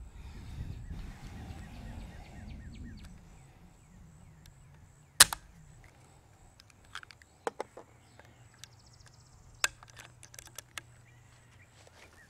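Mechanical clicks from handling a Benjamin Marauder semi-automatic .22 PCP air rifle: one loud sharp click about five seconds in, another near ten seconds, and lighter clicks between and after, with a low rustle in the first few seconds.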